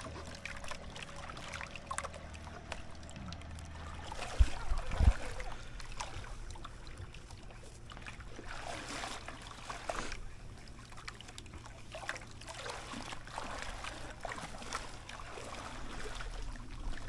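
Shallow seawater splashing and trickling around a person wading beside a bamboo raft, with two sharp knocks about four and five seconds in.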